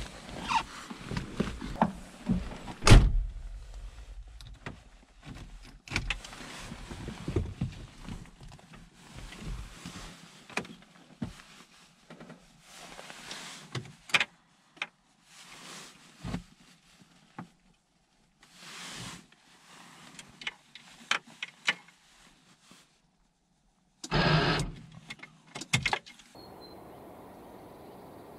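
Clicks, knocks and rustling of a car being handled with its engine off, with a heavy thump about three seconds in and a louder burst of about a second near the end.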